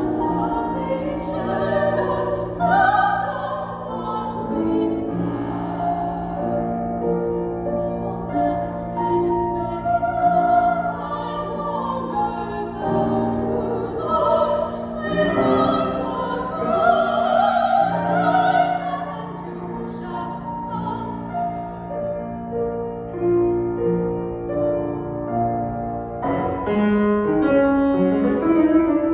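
Two sopranos singing a classical art-song duet in an operatic style with vibrato, accompanied by grand piano.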